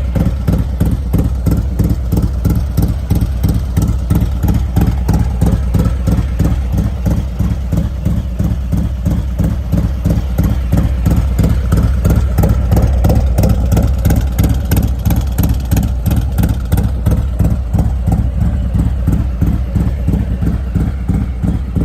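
Harley-Davidson Milwaukee-Eight 117 V-twin, fitted with a Star 30/30 cam and D&D exhaust, idling with a steady, even pulse of loud exhaust beats. It swells slightly around the middle.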